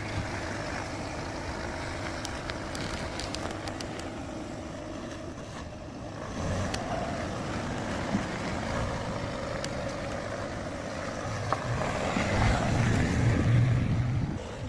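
Wind buffeting the microphone outdoors: a steady rumbling hiss that grows louder in the last few seconds, with a few light clicks early on.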